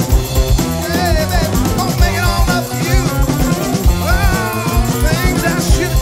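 Live rock band playing: a drum kit keeps a steady beat under two guitars, with a singer at the microphone and melody lines that bend up and down over the top.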